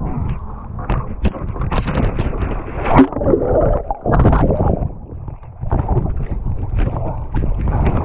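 A person falls off a stand-up paddleboard into the sea: a loud splash about three seconds in, then water churning and bubbling as the board's camera dips underwater.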